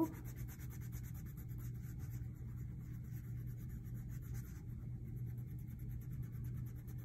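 Wax crayon rubbing on paper in quick, short back-and-forth strokes as a shape is colored in, over a steady low hum.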